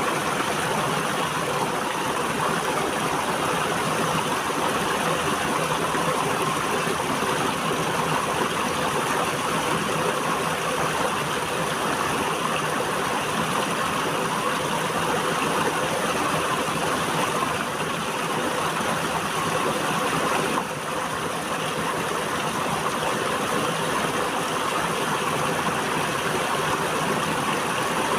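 River water flowing steadily, with a brief dip in level about two-thirds of the way through.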